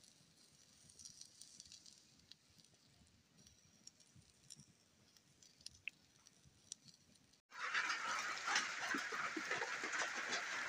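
Small fire of dry grass and twigs crackling faintly, with a few sharp pops. About seven seconds in it gives way to rain falling steadily, much louder.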